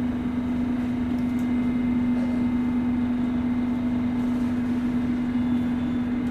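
Inside a London Underground tube train carriage: a steady hum at one unchanging pitch over an even rumble from the moving train.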